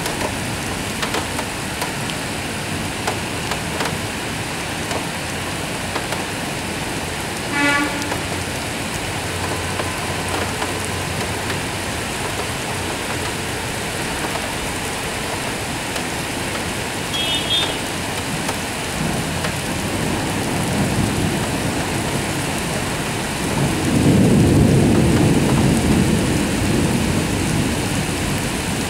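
Steady rain falling in a thunderstorm, with a low rumble of thunder that swells about two-thirds of the way through and is loudest near the end.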